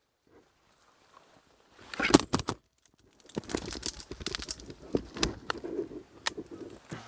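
Irregular rustling and clicking, with a few sharp cracks standing out.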